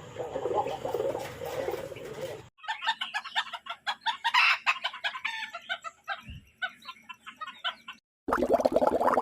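Chickens clucking and calling in many quick, short notes, starting about two and a half seconds in and stopping at a cut near the end. Before them comes a lower-pitched animal sound, and after the cut a different fast-pulsing call.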